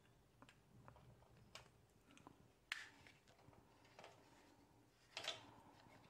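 Near silence with a few faint plastic clicks and scrapes from a SATA data cable connector being pushed into a 2.5-inch SATA SSD's data port. The clearest click comes about halfway through, another near the end.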